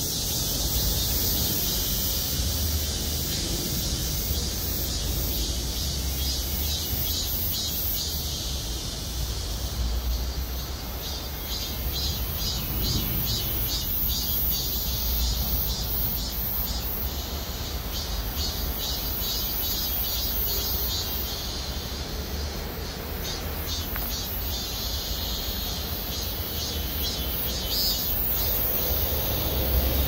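A chorus of cicadas singing, a steady high hiss with evenly repeated pulses of about two to three a second, over a low rumble.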